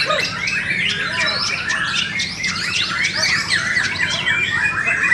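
White-rumped shama (murai batu) singing loudly: a fast, unbroken stream of whistles, chirps and sweeping up-and-down notes, with other caged birds' calls overlapping.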